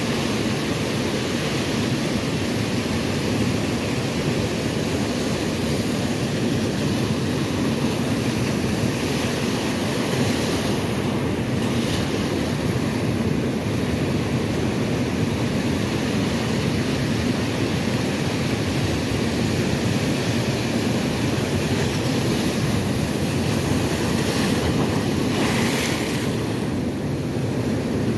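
Ocean surf washing in and foaming over flat shoreline rocks, a steady rushing wash, with two brighter hissing surges, about a third of the way in and near the end.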